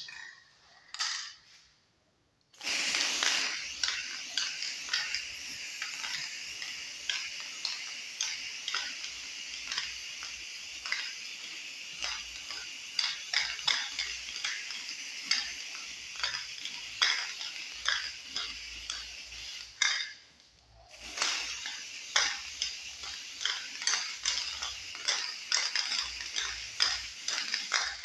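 Spray painting a bicycle frame: a continuous spray hiss with many small clicks and knocks, broken once by a short pause about 20 seconds in.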